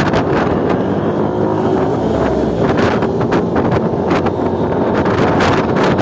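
Wind buffeting the microphone of a moving motorcycle: a loud rushing with uneven gusts, over the steady hum of the motorcycle and the road.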